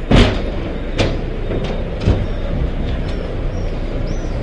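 A few sharp knocks and bumps, the loudest just after the start, as hands and body strike a glass-and-metal railing, over a steady rumbling background noise.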